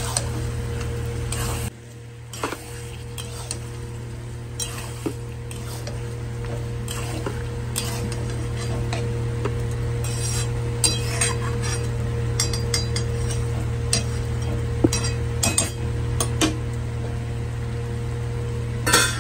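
Metal spatula stirring and scraping chicken pieces through oily masala in a steel kadai, with frying and clinks against the pan, over a steady hum. A louder clank of metal near the end.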